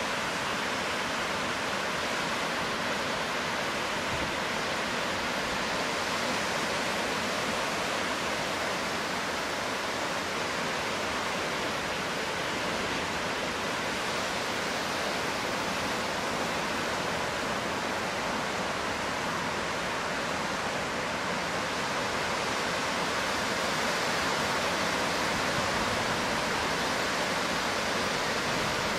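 Steady roar of heavy hurricane-driven surf breaking along the shore, an unbroken hiss that swells slightly near the end.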